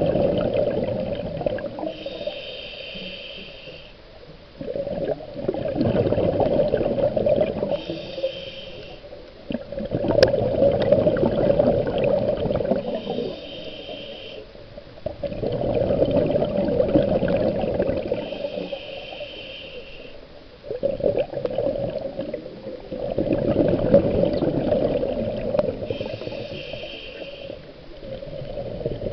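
Scuba diver breathing through a regulator underwater: bursts of exhaled bubbles rumbling past the camera about every five seconds, each followed by a short hiss of inhaled air through the regulator, six breaths in all.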